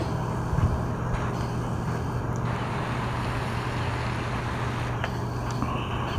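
Steady background rumble with a constant low hum and no distinct events.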